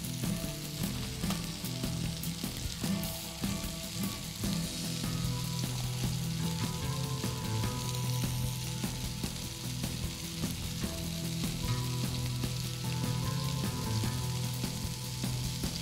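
Minced-chicken chullu kababs frying in a pan of oil on a gas stove, with a steady sizzle.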